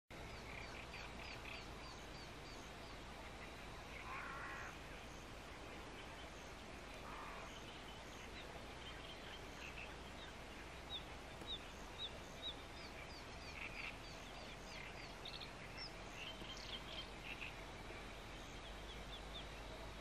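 Faint bird calls over a steady low hiss: scattered short, high chirps and whistles, with a quick run of four sharper notes a little past the middle.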